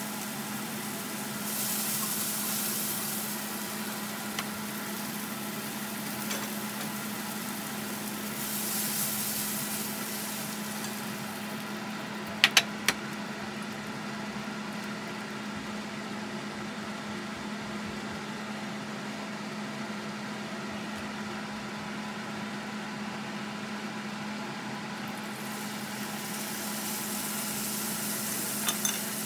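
Steady electrical hum from an induction cooktop, with food sizzling in a hot frying pan off and on. The sizzling swells near the end as a raw steak is laid into the pan. A few sharp clicks come about halfway through.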